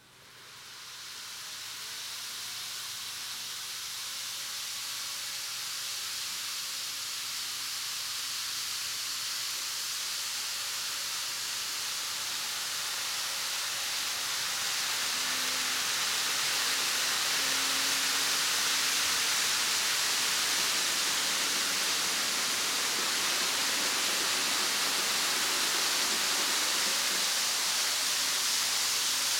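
Model Shinkansen train running along the layout track, a steady hiss of wheels and motor that starts suddenly and grows louder over the first half as the train comes closer, then holds.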